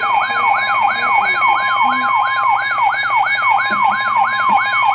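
Electronic emergency-alert siren tone: a pitch sweeping rapidly up and down about three times a second over a steady high alert tone.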